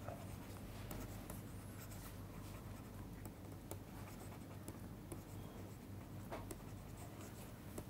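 Faint scratching and small taps of a pen stylus writing on a tablet screen, over a low steady hum.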